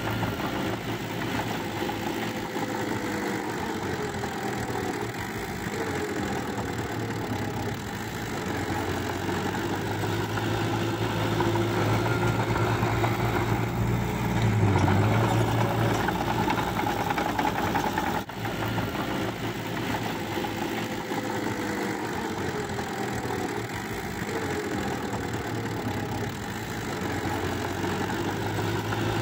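Small crawler bulldozer's diesel engine running steadily under load as its blade pushes soil and grass, growing louder for several seconds around the middle.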